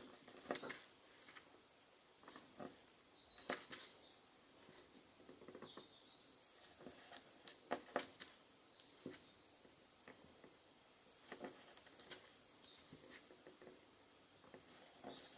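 Faint, irregular soft clicks and light rustling as fingers shape small teardrops of cold porcelain clay and set them down one by one on a plastic file sheet.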